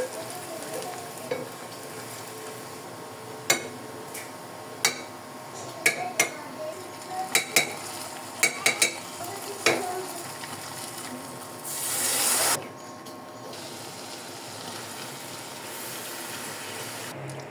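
Beef curry frying in a pan: a steady sizzle with the sharp clicks and knocks of a utensil stirring against the pan, and a brief louder hiss about twelve seconds in.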